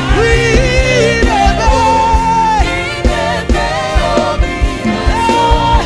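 Live gospel praise music: sung voices holding long, sustained notes over a band with a steady drum beat.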